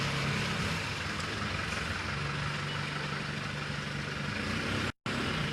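Rain falling steadily as an even hiss, lighter rain that is easing off. A low steady hum sounds under it for a couple of seconds in the middle, and the sound cuts out for an instant near the end.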